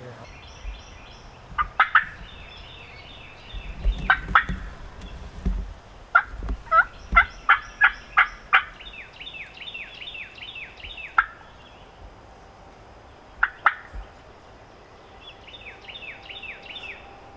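Wild turkeys gobbling at close range: loud runs of sharp notes, the longest about seven in a row a little after six seconds in. Fainter runs of higher, falling notes come in between.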